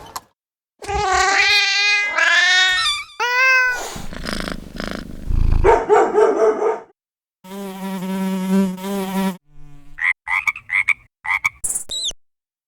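A string of short, separate sound effects with brief silent gaps: wavering, animal-like calls, then quick rising squeals, a noisy rumble, a steady buzzing drone about two seconds long, and a few quick chirps near the end.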